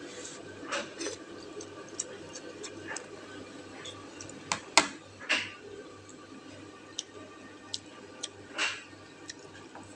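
Eating sounds from a bowl of noodle soup: scattered light clicks of utensils against a metal pan, with a few short soft mouth noises, over a faint steady low hum.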